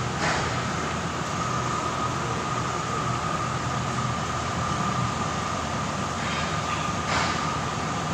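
DMG Mori Ecoturn 450 V3 CNC lathe running, a steady high whine over a low hum, with two short clacks, one just after the start and one about seven seconds in.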